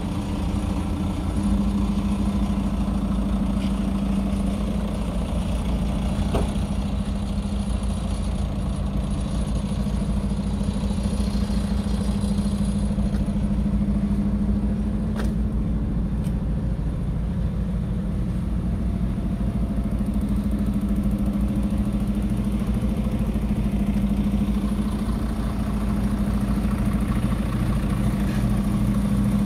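Scania R 500 tractor unit's 13-litre straight-six diesel idling steadily, with a couple of faint clicks.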